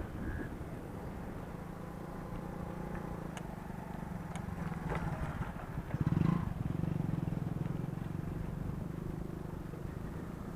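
A motor vehicle's engine running with a steady hum, growing louder about six seconds in as it comes closer.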